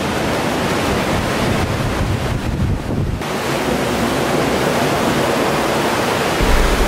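Sea surf washing in among shore rocks, with wind buffeting the microphone. A heavier low gust of wind rumble comes near the end.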